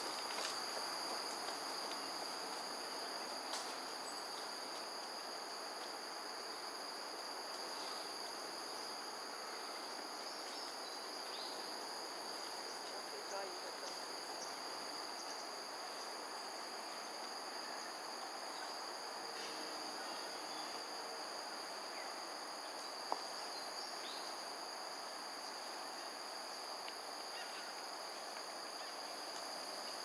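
Steady insect chorus of several even, high-pitched tones over a continuous wash of background noise, with a single sharp click near the end.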